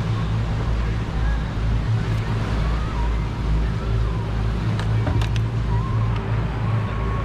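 Sportfishing boat's engine running steadily under way, a constant low drone with wind over the boat, and a couple of sharp clicks about five seconds in.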